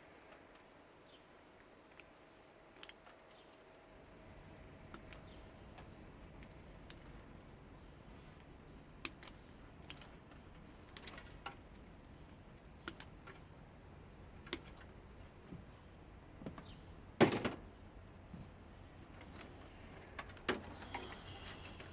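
Scattered light clicks and knocks of plastic and metal parts being handled while a CRT television is taken apart, with one much louder clatter about seventeen seconds in.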